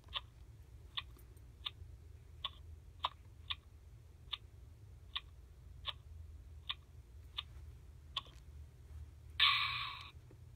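2010 Baby Alive doll sucking on a pacifier: about a dozen soft, evenly spaced sucking clicks, roughly one every 0.7 seconds. A short, louder burst follows about nine seconds in.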